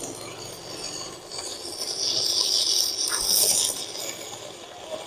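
Crackling and hissing of a stick-welding arc as a 10-gauge electrode burns on a 160 A mini DC inverter welder. It grows louder about a second and a half in and eases off near the end. The arc runs steadily: the small machine is handling the 10-gauge rod well.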